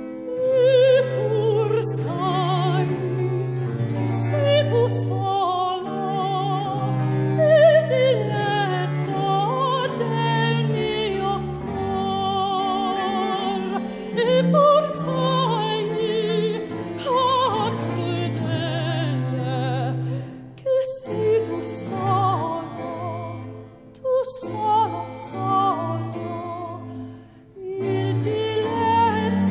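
Soprano singing a baroque Italian cantata with wide vibrato, accompanied by harpsichord and a sustained low bass line. In the second half the voice comes in shorter phrases with brief pauses between them.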